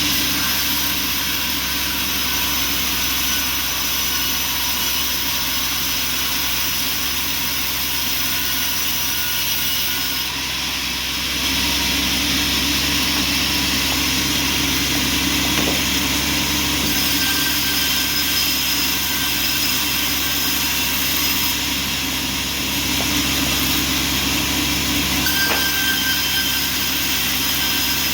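Bandsaw sawmill running steadily, its motor and blade making a continuous mechanical drone that grows a little louder about eleven seconds in.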